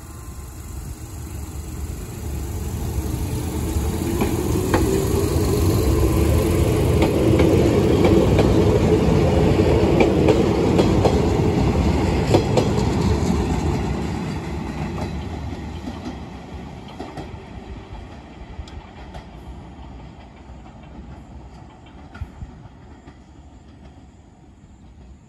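Izuhakone Railway 7000 series electric train, a resistance-controlled EMU with TD Cardan drive, accelerating past and away: its motor whine rises in pitch while the wheels clack over rail joints. The sound is loudest as the cars go by, then fades as the train moves off down the line.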